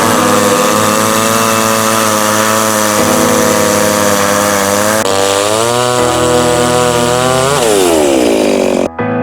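Two-stroke chainsaw running at high revs. Its engine note climbs briefly, then drops steadily as the throttle is let off, and the sound cuts off suddenly near the end.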